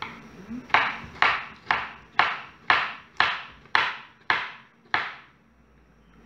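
Kitchen knife chopping tomatoes on a wooden cutting board: about nine sharp chops, roughly two a second, which stop about a second before the end.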